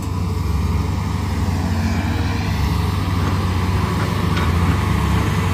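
Cat 320D hydraulic excavator's diesel engine running under load as the machine, sunk in deep mud, swings its arm and bucket to dig itself out. A faint whine wavers up and down around the middle.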